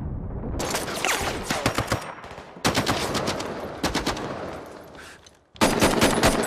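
Rapid automatic gunfire in several loud bursts with echoing reverberation, from a film shootout's sound design. The firing thins out about five seconds in, goes briefly near silent, and then breaks out again suddenly.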